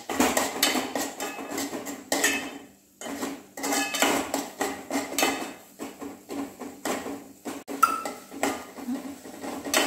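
Steel spoon scraping and clinking against a metal pot as thick spice masala is stirred and fried, with a brief pause about three seconds in.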